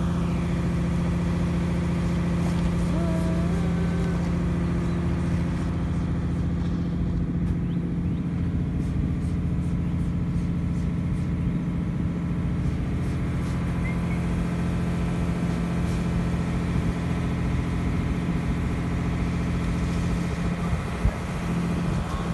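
Pushboat's diesel engine running at a steady, unchanging drone, with a single brief knock near the end.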